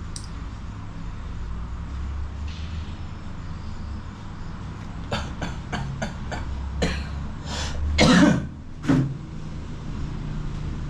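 A person coughing a few times, the loudest cough about eight seconds in, after a quick run of short clicks, over a steady low hum.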